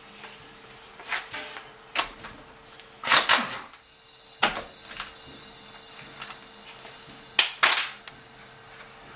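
Metal hand tools clinking and clanking in short sharp knocks against metal, the loudest a pair of clanks about three seconds in and another pair about seven and a half seconds in, over a faint steady hum.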